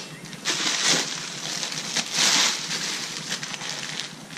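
Thin plastic bag crinkling and rustling as a part is pulled out of it, in uneven bursts, the loudest about half a second in and just after two seconds.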